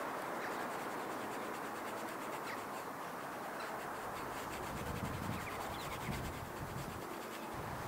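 Soft pastel stick scratching and rubbing across paper in repeated strokes, with a low rumble about halfway through.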